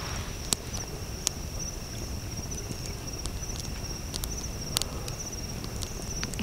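Insects trilling in a steady, high, pulsing buzz, with scattered sharp clicks and a low rumble of background noise; the trill cuts off abruptly at the end.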